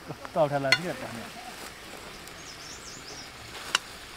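Outdoor ambience: a steady hiss with a faint, high bird chirping about two and a half seconds in. A short voice sound near the start, and a sharp click near the end.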